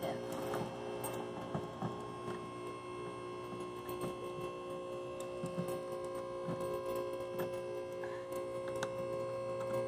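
A steady hum made of several held tones, with faint scattered clicks and taps as a stiff plastic mesh grille is pressed and bent into a car's bumper opening.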